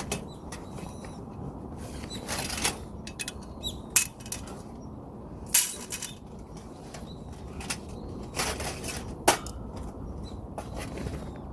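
Scattered clinks and knocks of camping cookware and gear being handled, over a steady low background noise.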